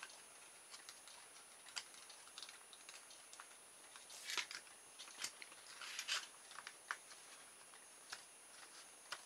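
Faint clicks and small scrapes of hands handling the plastic frame and metal parts of a small electric motor kit while fitting a magnet into its holder, with two short scratchy rustles about four and six seconds in.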